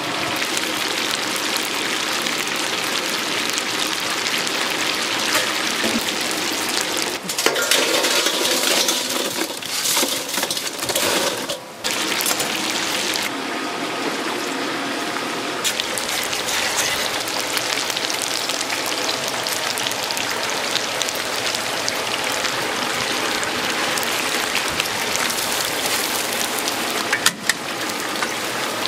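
Chicken deep-frying in a vat of hot oil: a steady sizzling hiss that swells louder for a few seconds about a third of the way in.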